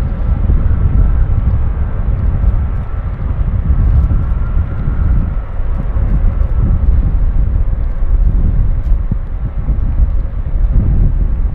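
Airbus A321neo's Pratt & Whitney PW1100G geared turbofan engines rumbling low as the airliner rolls along the runway. A faint steady whine rides above the rumble and fades out about two-thirds of the way through.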